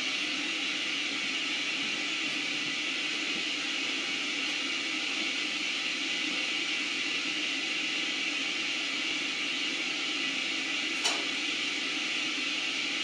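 Steady hiss with no tune or rhythm, and one short click about eleven seconds in.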